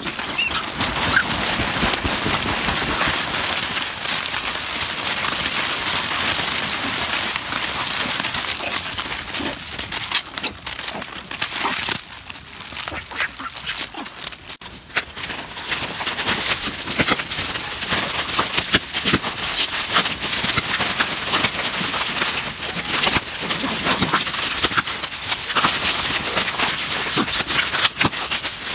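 A troop of macaques calling and squealing over food, with many short clicks and scuffles among them.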